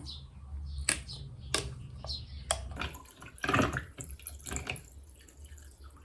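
A few sharp clicks and knocks, then a brief rush of water-like noise about three and a half seconds in, over a steady low hum.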